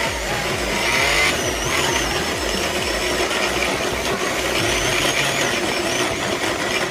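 Countertop blender motor running steadily under load, churning a thick liquid mixture.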